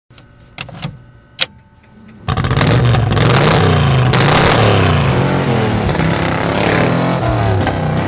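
Early Ford Bronco engine: a few clicks, then about two seconds in the engine fires and is revved up and down repeatedly, heard at the exhaust.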